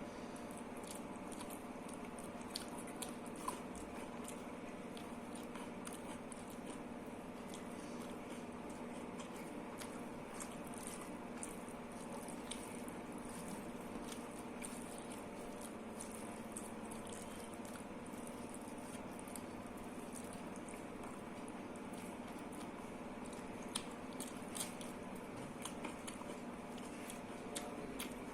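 Close-up eating sounds: wet chewing and soft squelching of dal and rice, with scattered crisp crunches of cucumber and small clicks. A steady low hum runs underneath.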